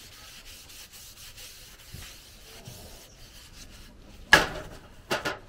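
Cloth rubbing wax into a wooden axe handle, a faint, steady scrubbing. Near the end come three short, louder noises, the first the loudest.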